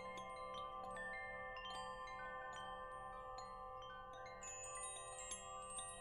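Wind chimes ringing: frequent light strikes at many different pitches, each tone ringing on and overlapping the next.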